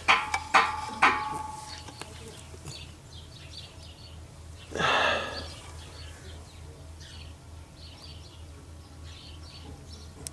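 Three metal clanks with a short ringing tail, about half a second apart, at a T-150K tractor's steel wheel rim, where the hand oil pump's hose is being set up to top up the axle. About five seconds in comes a short whoosh that falls in pitch, and small birds chirp faintly throughout.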